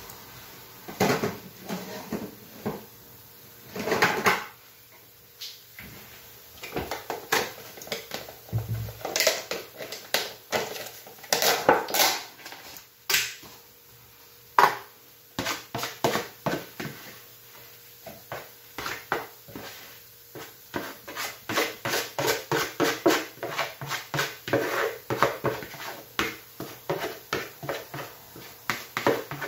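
Kitchen handling sounds around a plastic mixing bowl of akara bean batter: knocks, clicks and scrapes of the bowl and utensils, irregular at first, then a quick run of taps, two or three a second, through the second half.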